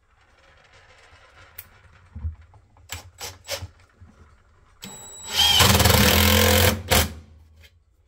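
A few light knocks as a screw is set, then about five and a half seconds in a cordless drill spins up and drives a T25 screw through a wooden board into a wall stud for just over a second, stopping abruptly, followed by one more knock.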